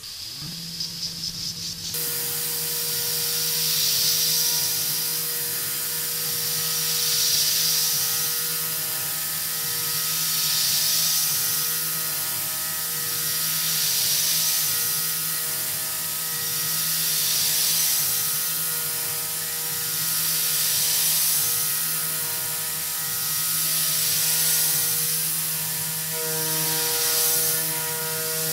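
Tormach 440 CNC mill cutting aluminium with a small three-flute corner-radius end mill: a steady spindle hum and motor whine, with a bright cutting hiss that starts about two seconds in. The hiss swells and fades about every three and a half seconds as the tool works around the round boss.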